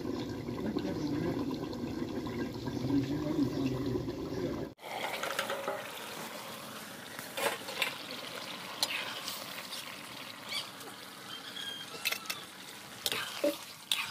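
A low, wavering hum for the first five seconds, then an abrupt change to a curry simmering and bubbling in a wok over a wood fire, with several sharp clinks as a metal lid and a ladle knock against the pan.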